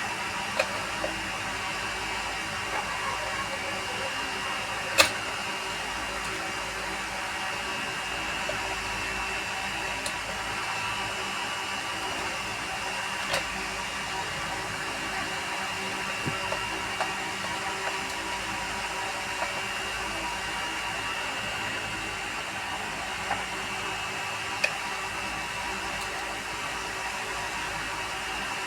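A steady blowing, whirring noise with a faint high whine runs throughout. Over it come scattered clicks and taps of plastic parts as a set-top box casing is handled and fitted back together, the sharpest about five seconds in.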